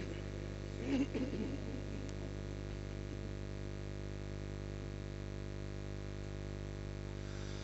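Steady electrical mains hum from a microphone and PA sound system during a pause in recitation, with a brief faint voice about a second in.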